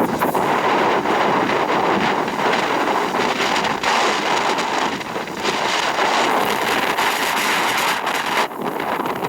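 Strong gusty wind blasting across the microphone: a loud, unsteady rushing noise that surges and eases, dropping back briefly about halfway through and again near the end.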